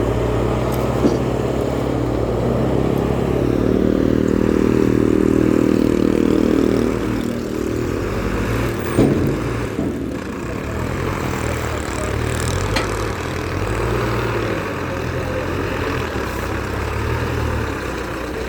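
Engine of a heavy earth-working machine running steadily during soil leveling, working harder for a few seconds about a quarter of the way in, with a single knock about halfway through.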